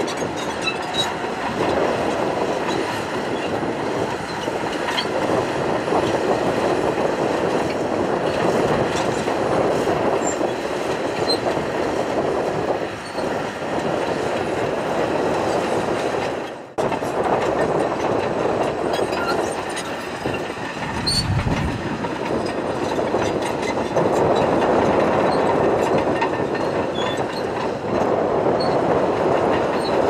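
Crawler bulldozer working, its engine running under load while the steel tracks clank and squeak. There is a brief break about halfway through.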